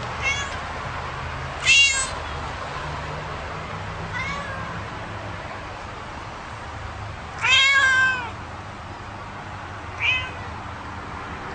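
A domestic cat meowing five times at uneven intervals. The longest and loudest meow comes about two-thirds of the way through. A steady low hum runs underneath.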